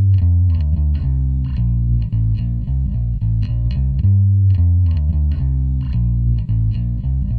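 Instrumental background music with a heavy, rhythmic bass line.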